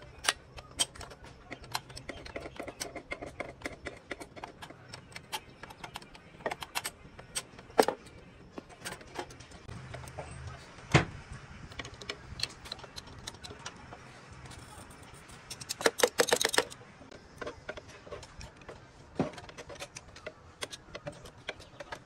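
Metal tools and engine parts clinking and knocking in irregular sharp taps, with a brief quick run of rapid clicks about two-thirds of the way through.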